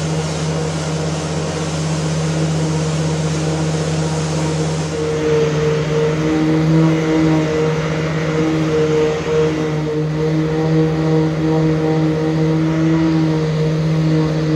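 Random orbital sander running on a walnut veneer surface, together with the dust extractor drawing through its hose: a steady motor hum that grows stronger about five seconds in.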